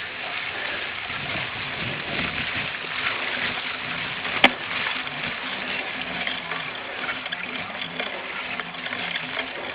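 Steady rushing noise of a cyclocross bike being ridden at race pace: wind on the microphone and tyres over the course. One sharp knock comes about halfway through.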